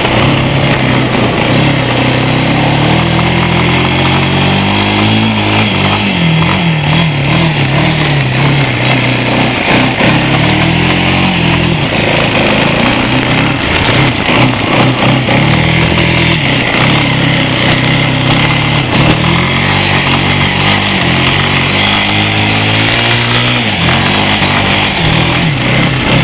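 Four-wheeler (ATV) engine running, its pitch rising and falling several times as the throttle is worked, under heavy wind noise on the microphone.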